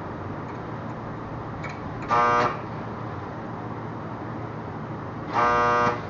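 A vehicle horn sounding twice, two short toots about three seconds apart, the second a little longer, over a steady background hiss.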